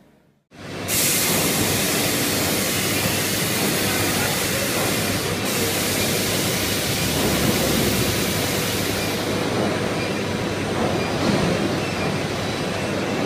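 Crate tipper with hydraulic lift cylinders and its hopper elevator conveyor running: a steady, loud machine noise that starts abruptly about half a second in.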